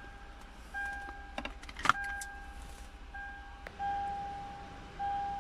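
A steady electronic warning tone from the car, sounding in on-and-off stretches of about half a second, with a few sharp clicks and knocks of parts being handled at the steering column, the loudest about two seconds in.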